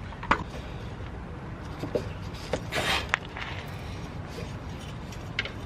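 A few sharp metallic clinks and a short scrape of hand tools on the exhaust downpipe fittings under a car, over a steady low background rumble. The loudest clink comes just after the start and the scrape comes about halfway through.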